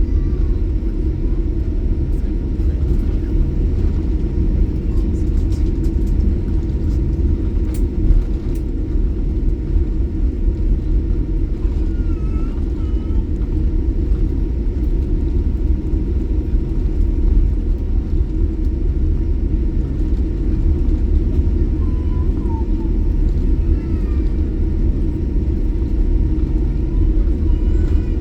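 Steady low rumble inside a passenger vehicle, with a faint steady hum over it and a few faint distant voices.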